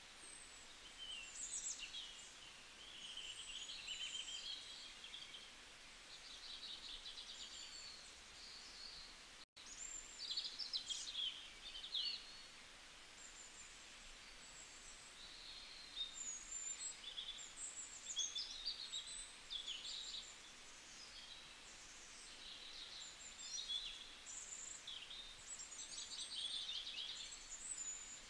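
Several birds chirping and trilling in a continuous chorus of high calls, cut off for a split second about nine and a half seconds in.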